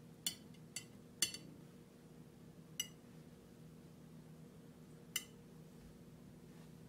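Long metal tongs clinking lightly against a ceramic plate as garnish vegetables are set down, five short clinks spread over several seconds.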